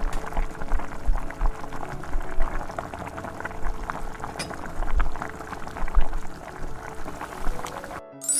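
Bubbling liquid, like water at a boil, with many small pops and low thumps. It stops abruptly near the end, where a bright chime begins.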